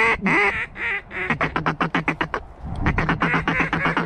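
Canada goose calls blown fast, starting with a couple of honks that break upward in pitch and turning into a rapid chatter of short clucks, several notes a second. The chatter pauses briefly past the middle, when a low rumble is heard, then picks up again.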